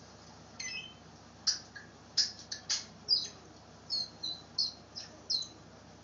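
African grey parrot giving a run of about a dozen short, high chirps and whistles, a few sharp and clicky, several falling in pitch.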